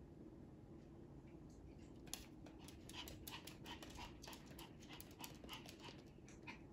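A Pomeranian panting faintly in quick short breaths, starting about two seconds in.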